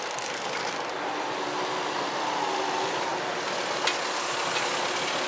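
Automatic level-crossing barriers lifting while waiting traffic idles: a steady mechanical and engine hum, with a sharp click nearly four seconds in.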